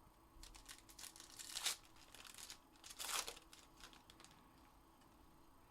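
Faint crinkling and rustling of trading cards and their packaging being handled, with two louder swishes about one and a half and three seconds in.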